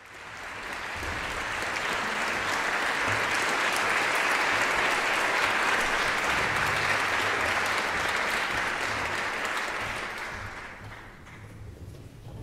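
Audience applauding, swelling in over the first couple of seconds and dying away about ten seconds in.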